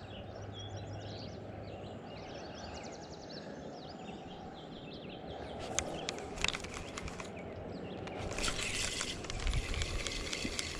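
Steady rush of flowing river water, with faint bird chirps over it in the first half. From about six seconds in come a few sharp clicks, and near the end a rougher rustling noise with more clicks.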